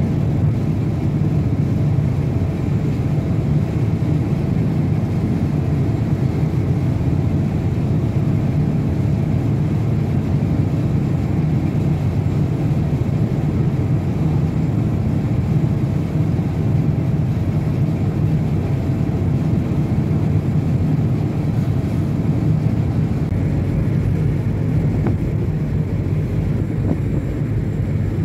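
A ship's engine making a steady low rumbling drone, with a faint steady hum above it and the hiss of water and wind.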